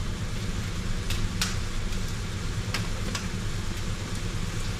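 Wai Wai instant noodles in sauce sizzling in a wok, over a steady low hum, with a few sharp crackles.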